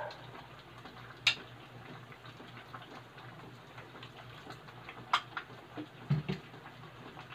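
Utensils clinking against a glass bowl and a metal pot as noodle soup is ladled out: a few sharp clinks, the clearest about a second in and two more around five and six seconds in, with faint ticks between, over a steady low hum.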